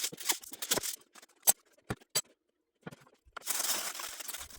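Aluminium foil crinkling as it is folded tightly around a rack of ribs: bursts of crackling with a few sharp clicks between them and a short pause in the middle.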